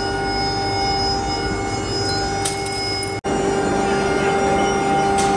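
Workshop machinery running steadily with a constant whine of several steady tones. It drops out for an instant about three seconds in.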